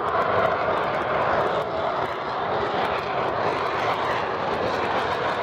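U.S. Navy F/A-18 Hornet flying past, its twin jet engines making a loud, steady rush of noise that swells at the start and then holds.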